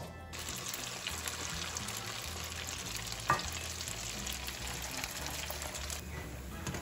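Corn fritters frying in hot oil, a steady sizzling hiss, with a single sharp click about three seconds in.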